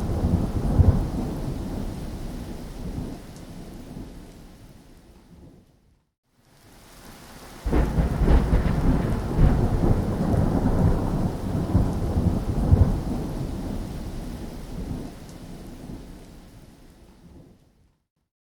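Thunderstorm: rain with two long rolls of thunder. The first dies away to silence about six seconds in. The second breaks sharply about eight seconds in and rumbles down to silence near the end.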